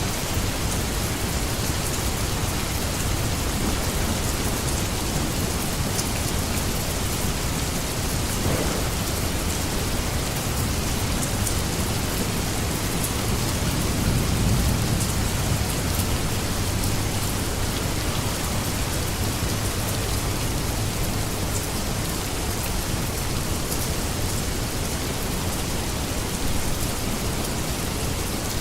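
Steady heavy rain falling, an even hiss with scattered drop ticks. A low rumble swells up about halfway through and fades again.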